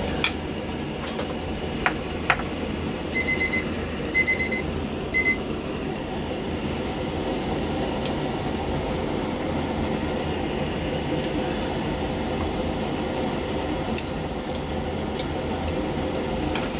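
Three quick groups of short, high electronic beeps about three to five seconds in, from the buttons of a kitchen appliance being pressed, over a steady hum with a few scattered clicks.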